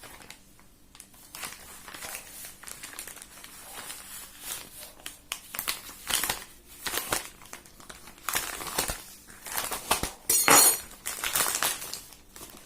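Parcel packaging being handled and opened, crinkling and rustling in irregular bursts, with one louder, longer rustle about ten seconds in.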